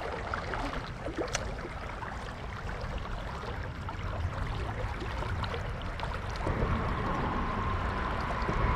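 Shallow creek water flowing and rippling around wading legs, over a low rumble. A steady high tone comes in about two-thirds of the way through.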